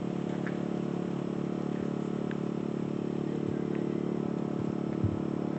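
Steady engine hum at a constant speed, with one brief knock about five seconds in.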